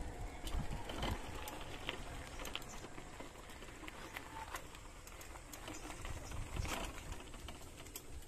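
Faint outdoor ambience: a low rumble with scattered light clicks and ticks.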